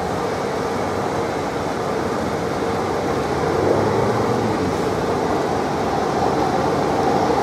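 Motorcade traffic passing: police motorcycles and cars with a steady rumble of engines and tyres, growing a little louder about halfway through as the lead outriders come up.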